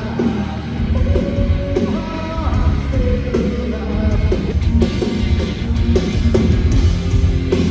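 Rock music with a singer over heavy drums and guitar, loud and continuous.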